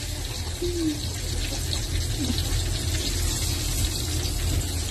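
Spaghetti-wrapped shrimp deep-frying in hot oil in a wok, a steady sizzle, with a low steady hum underneath.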